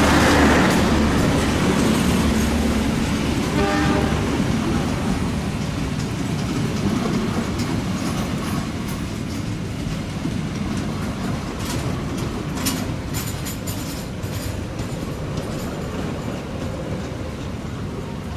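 Train passing close by and moving away, its wheel and rail noise slowly fading, with sharp clicks from the wheels over rail joints partway through. A horn tone sounds at the very start and briefly again about four seconds in.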